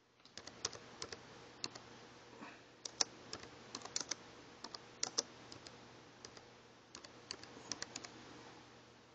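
Typing on a computer keyboard: irregular key clicks in short runs with brief pauses between them, stopping near the end.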